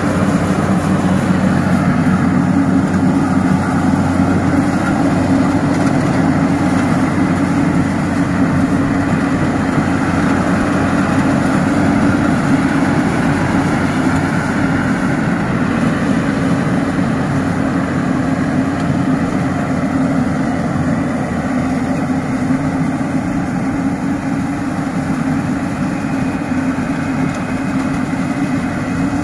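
Yanmar YH 8500 rice combine harvester's diesel engine running steadily in a continuous drone, easing slightly in loudness near the end.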